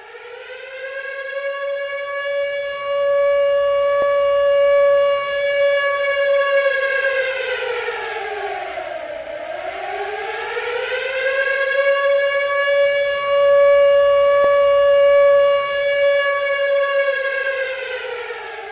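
Air-raid siren wailing. Its pitch rises to a held note and falls away about halfway through, then rises and holds again before sinking near the end.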